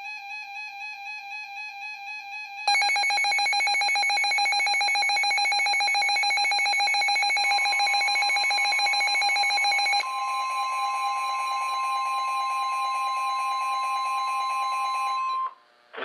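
Weather radios going off for a NOAA severe thunderstorm warning. A warbling alert tone is joined about three seconds in by a louder, rapidly pulsing alarm. The steady 1050 Hz NOAA warning alarm tone comes in about halfway through. The alarms cut off together just before the end.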